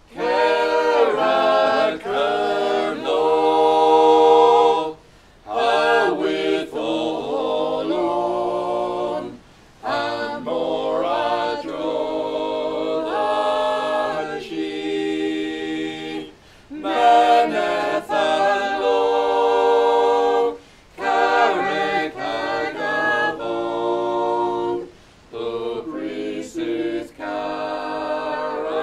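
A choir singing a cappella, phrase by phrase with short breaks between phrases; the singing starts abruptly.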